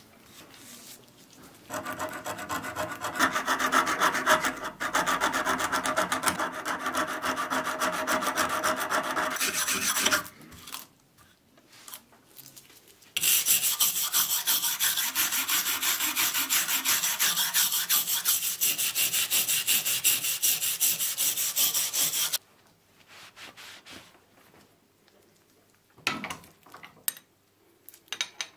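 Steel wire brush scrubbed rapidly back and forth over a rusty steel plane iron held in a vise. The rasping strokes come in two long spells with a pause of a few seconds between them, then only faint, brief rubbing near the end.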